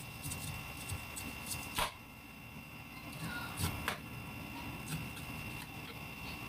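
Knife cutting and prying the rind off a ripe pineapple: a string of irregular crisp cracks and crunches, the loudest about two seconds in and again a little past the middle.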